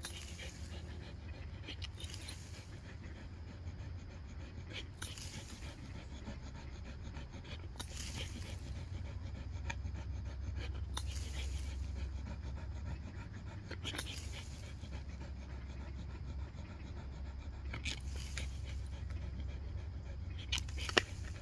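A pit bull breathing heavily, one hissy breath every few seconds, over a steady low hum, with a sharp click near the end.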